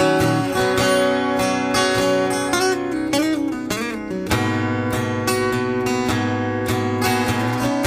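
Instrumental acoustic guitar music, strummed in a steady rhythm, with a few notes gliding up and down in pitch around the middle.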